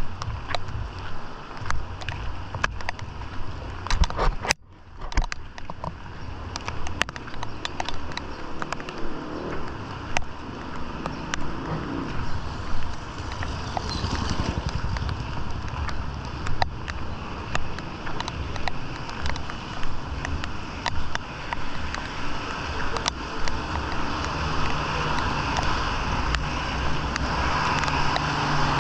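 Heavy rain hissing with scattered drop ticks, mixed with motor vehicles running through the wet street. A steady engine hum comes in near the end.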